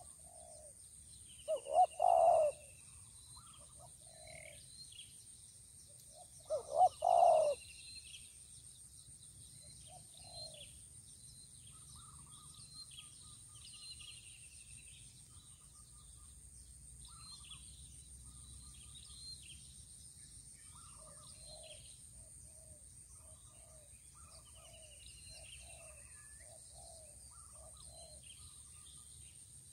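Spotted dove cooing twice, about five seconds apart, each call a short note followed by a longer one. Small birds chirp throughout.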